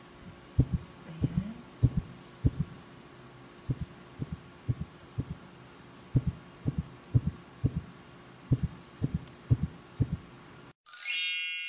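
Heartbeat sound effect: steady low double thumps, about two a second, over a faint hum. Near the end it cuts off abruptly and a bright bell-like chime rings out and fades.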